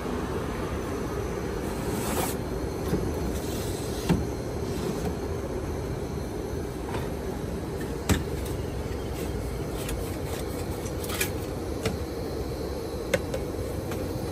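Stainless barista tools and cups clinking and knocking on a steel counter: a few separate sharp knocks over a steady low rumble.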